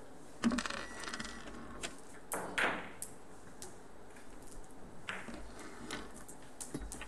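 Billiard balls clicking: a cue striking a ball and ivory-hard balls knocking against each other and the cushions, with a sharp click about half a second in and a string of lighter clicks after it.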